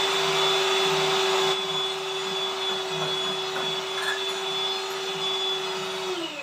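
Electric hand mixer running steadily with a high motor whine as its beaters whisk the egg, sugar and oil mixture for a sponge cake. It gets a little quieter about a second and a half in, then is switched off near the end, its whine falling in pitch as the motor winds down.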